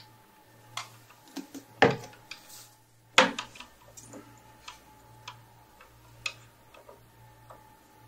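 Small metal clicks and taps as a CPU socket's retention clamp on a Mac Pro processor tray is worked open and the processor handled. The two loudest clicks come about two and three seconds in.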